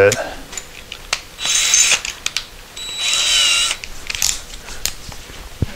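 Cordless DeWalt drill spun in two short bursts, about a second apart, with sharp clicks around them, as a stepped pocket-hole bit is tightened in its chuck.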